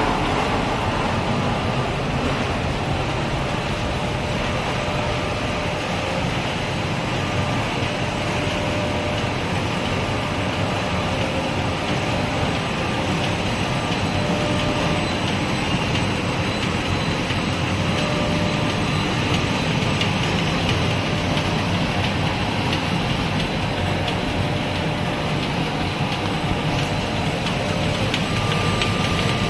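DABA DBZS servo-driven label finishing machine with silkscreen and hot-foil units running: a steady mechanical hum and whir of rollers and drives, with a faint whine that comes and goes.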